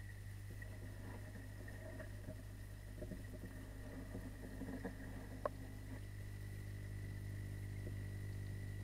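Steady low electrical hum heard underwater, with a few faint clicks and one sharper click about five and a half seconds in; more steady low tones join the hum about six seconds in.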